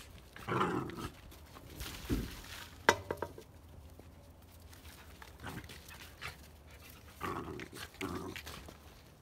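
Two puppies play-fighting, making short rough growling and grunting noises in a few bursts, with a single sharp click just under three seconds in.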